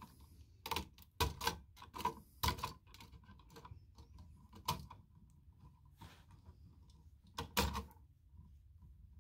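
Wire cutters snipping the wires off a wall outlet's push-in (backstab) connections: a series of sharp, short clicks and snips spread over several seconds, loudest near the end, with small handling knocks of the outlet in between.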